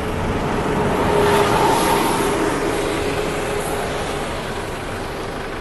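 Engine noise of something passing, with a steady hum under a rushing noise. It swells to its loudest about a second and a half in, then slowly fades.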